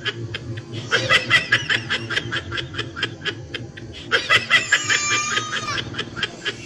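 People laughing in quick, rhythmic ha-ha bursts, loudest about a second in and again around four to five seconds in, over a low steady hum.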